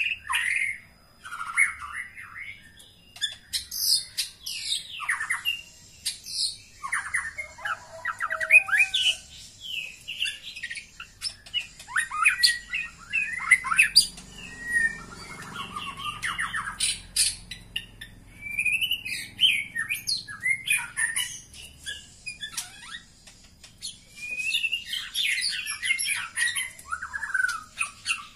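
White-rumped shama (murai batu) calling: many short notes and quick up-and-down whistled phrases in irregular runs with brief pauses. These are female shama calls, the kind played as a lure to bring a male into breeding condition.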